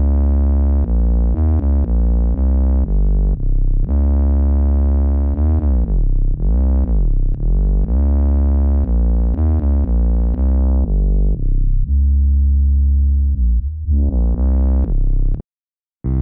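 808 sub-bass notes from the Apeshyt 808 II plugin's GOAT 808 preset, played as a bassline of changing pitches. Several notes slide down and back up in pitch in the middle. The sound cuts out for under a second near the end, then starts again.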